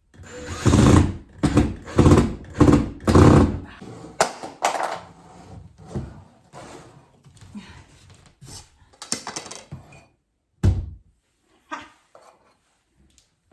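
MDF cabinet door and its hinges being handled and fitted: a quick run of knocks and thuds, then scattered lighter knocks and one heavy thunk near the end.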